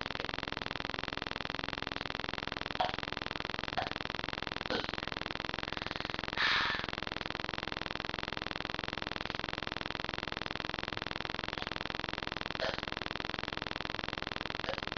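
Soda being drunk in gulps: a few faint, brief swallowing sounds and a short breathy hiss about six and a half seconds in, over a steady electronic hiss and buzz from the webcam microphone.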